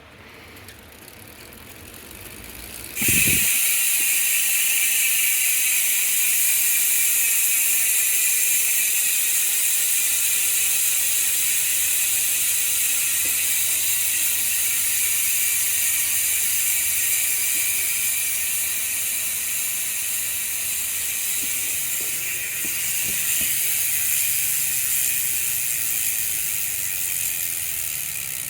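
e*thirteen Piedmont bicycle hub freewheeling, lightly greased, its pawls buzzing as the wheel coasts. The buzz cuts in loudly about three seconds in, and its pitch slowly falls as the wheel slows.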